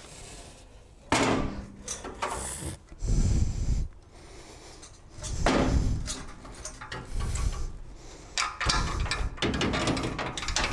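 Irregular clunks, bumps and scraping as a radiator is lowered into a car's core support and knocked against the plastic fan shroud while being lined up on its mounts. The deepest, loudest thud comes about three seconds in.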